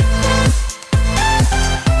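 Electronic dance music with a steady beat, pitched bass notes gliding downward and a synth melody.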